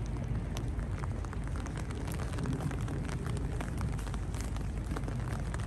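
Wind buffeting the microphone in a steady low rumble, with many irregular light ticks of raindrops.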